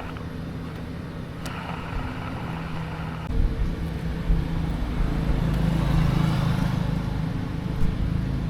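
A motor or engine running steadily with a low hum, growing louder about three seconds in, with a few light clicks.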